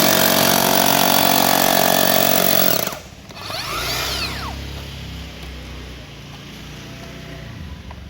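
Makita HR005G 40V cordless rotary hammer running, its steady hammering and motor noise loud. It stops abruptly about three seconds in, leaving only a quieter background.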